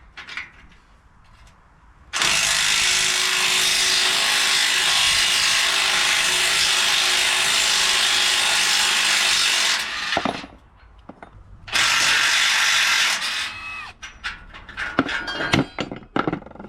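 A handheld power tool working on the steel trailer frame in two long runs, the first about eight seconds and the second shorter, each starting and stopping abruptly. Near the end come a series of short metallic clinks and knocks.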